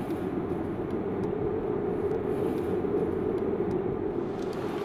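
Steady drone of a car driving slowly, heard from inside the cabin: a low, even rumble of engine and tyres.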